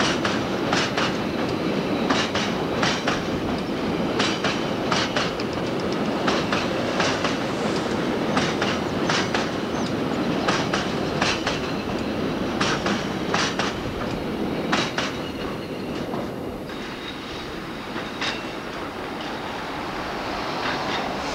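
Empty freight wagons rolling slowly past, their wheels clicking over the rail joints in small groups over a steady rumble. The clicks thin out about three-quarters of the way through, leaving a fainter rumble.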